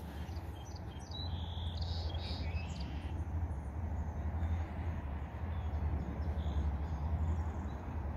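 Birds chirping in short calls for about two seconds near the start, over a steady low rumble that is the loudest thing throughout.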